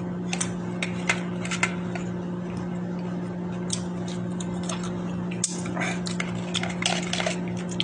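Close-up chewing of mango slices dipped in vinegar and soy sauce: scattered wet mouth clicks and lip smacks, over a steady low hum.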